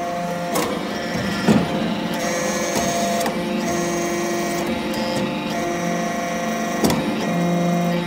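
Hydraulic power unit of an XB315 aluminium-chip briquetting press running: a steady motor-and-pump hum and whine whose tones shift in steps, with a few sharp knocks, the loudest about a second and a half in and again near seven seconds.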